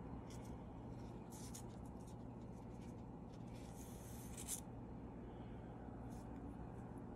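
Faint handling noise: fingers rubbing and rustling a paper insert card while holding a soft squishy toy, a few brief scratchy rustles over a steady low hum.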